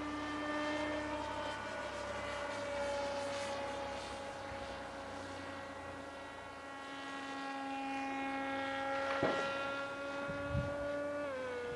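Electric motor and propeller of a single-motor 1400 kV foam flying-wing RC plane running steadily in flight, a held tone with overtones that steps down slightly in pitch near the end.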